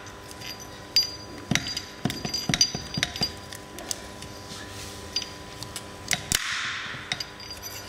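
Individual wires of a 25 mm steel wire rope snapping under the blade of an ENERPRED RTA-50 hydraulic cable cutter. The sharp, irregular clicks come several to a second at times, with the sharpest snap about six and a half seconds in.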